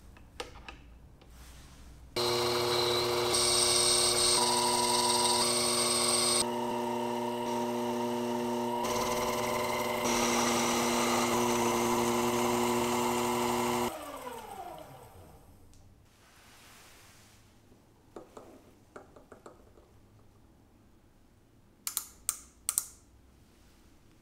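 Small metal lathe running with a steady motor whine while a carbide tool turns the outside of a metal tube, with a hiss from the cut. About 14 seconds in it is switched off and winds down in falling pitch. Then come light handling clicks, and near the end three sharp clicks from a micrometer closing on the part.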